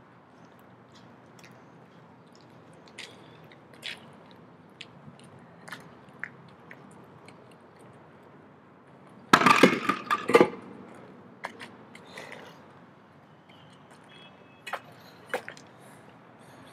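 Steel beer keg set down on concrete among other kegs: a burst of metallic clanks about nine seconds in, with a couple of lighter knocks near the end and faint scattered clicks between.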